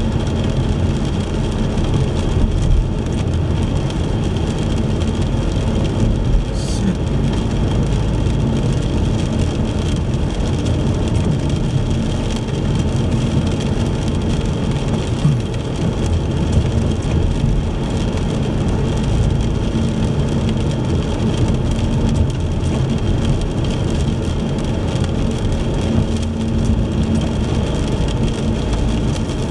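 Car driving in the rain: steady engine and tyre rumble with the hiss of rain and wet road.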